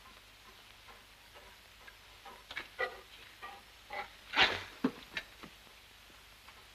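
A run of light clicks and knocks with one short rustle in the middle, as the small wooden keg hung on a St. Bernard's collar is handled.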